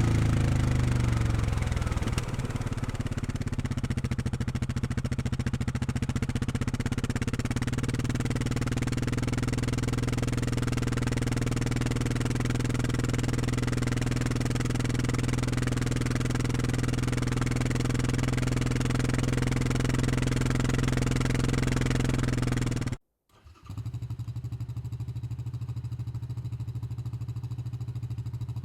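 Four-stroke utility ATV engine settling from higher revs to a steady idle. Near the end the sound cuts out for a moment, and the engine then idles on more quietly.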